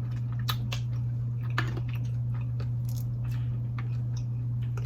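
Close-up eating sounds: seafood-boil blue crab and mussels being bitten, cracked and chewed, with scattered short crackles and wet squishing. A steady low hum runs underneath.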